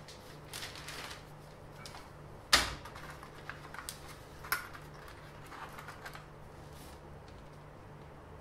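Handling noise at a paper-covered workbench: light clicks and paper rustles as a flexible ruler and tools are moved about, with a sharp knock about two and a half seconds in and a smaller one about two seconds later, over a faint steady hum.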